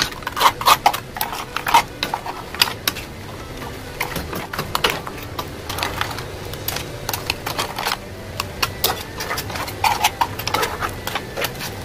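A spoon knocking and scraping in a frying pan of crab pieces as they are stirred: irregular clicks and knocks, often in quick runs.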